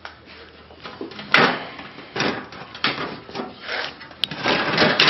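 Loose metal interior panels of a kit-car chassis being handled: scraping and rattling, with a few sharp knocks as they shift against the frame.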